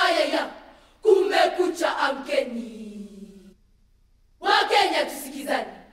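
Group of voices chanting in short unaccompanied phrases with brief pauses between them; about two seconds in, one phrase slides down in pitch and trails off.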